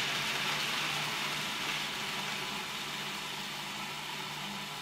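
Countertop food processor motor running steadily, grinding walnuts into a fine powder: a loud whirring hiss over a low motor hum, getting gradually a little quieter as the nuts break down.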